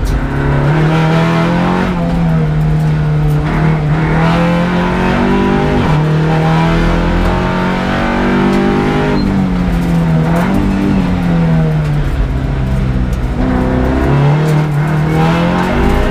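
Audi RS3 LMS race car's turbocharged four-cylinder engine heard from inside the cockpit at racing speed, the revs repeatedly climbing and dropping through gear changes and corners.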